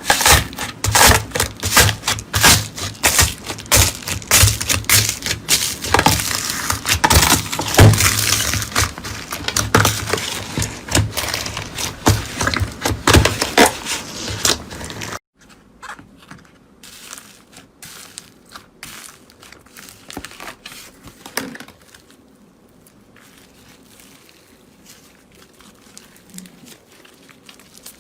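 Dense crunching and crackling of something brittle being crushed, many sharp cracks in quick succession. About halfway through it cuts off abruptly to much quieter, sparse crackles.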